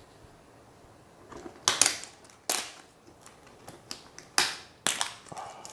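Clear plastic shrink-wrap crinkling and tearing as it is peeled off the lid of a plastic tub, in about five short, sharp crackles that begin after a quiet first second or so.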